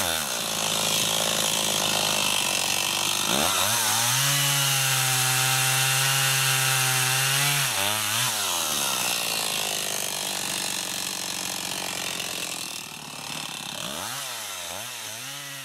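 Stihl Rollomatic E chainsaw's two-stroke engine running while cutting through a felled trunk, its pitch rising and falling with the throttle. It holds a steady high pitch for a few seconds in the middle, turns rougher as it works through the wood, and near the end drops and wavers up and down as the throttle is eased.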